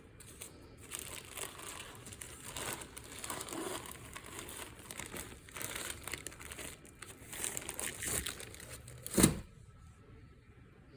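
Packaging crinkling and rustling as it is handled, with one sharp knock about nine seconds in.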